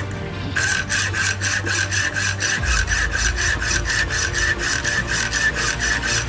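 Hand hacksaw cutting through a steel concrete nail clamped in a bench vise: rapid, even rasping strokes, about five a second, after a brief pause right at the start.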